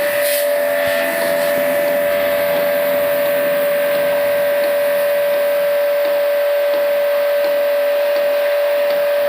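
A machine running steadily with a constant hum and a hiss over it, at an even level throughout.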